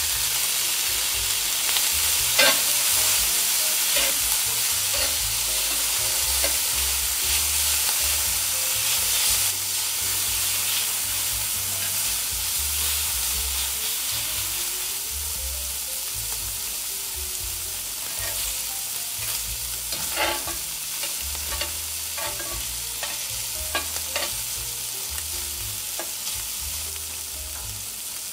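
Food frying in a pan with a steady, loud sizzle while it is stirred, with a few sharp knocks of the utensil against the pan. The sizzle eases off slightly toward the end.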